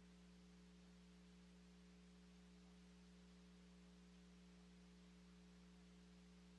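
Near silence: a faint, steady electrical hum with light hiss on an idle broadcast audio line.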